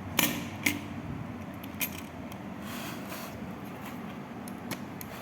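A few sharp small clicks and a brief rustle from hands handling computer parts and packaging on a workbench.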